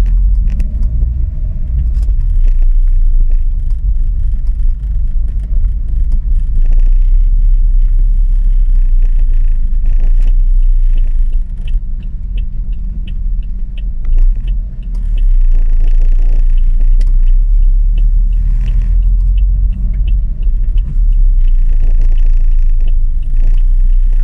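Steady low rumble of a car's engine and tyres heard from inside the cabin as it moves slowly through traffic.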